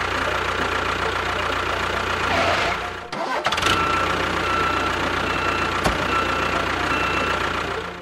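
Steady engine running of a miniature tractor road roller. It drops out briefly about three seconds in, then carries on under a repeating high electronic beep, about five beeps, with a single sharp click near the end.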